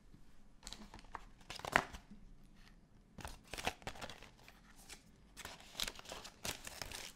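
Product packaging being handled on a desk: irregular rustling and crinkling, with a sharper, louder rustle about two seconds in.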